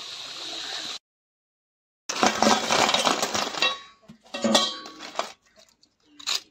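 Pitha frying in hot oil in a kadai, a steady sizzling hiss that cuts off after about a second. After a second of silence a brief loud burst of music comes in, followed by light clinks of a knife against a steel plate.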